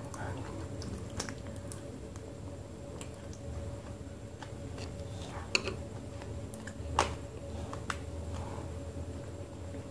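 Close-up mouth sounds of chewing a thick wet multani mitti (Fuller's earth clay) paste: sticky squishing and smacking, with a few sharp clicks, the loudest about five and a half and seven seconds in.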